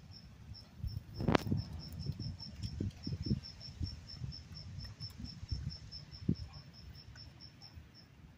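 A cricket chirping steadily, about four short high chirps a second. Under it, low rustling and knocks as a dog noses through weeds, the loudest knock just over a second in.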